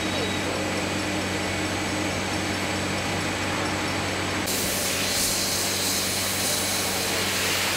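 Steady machine noise of a beer bottling line: a constant hum with several low tones under a hiss. About halfway through the hiss suddenly becomes louder and brighter.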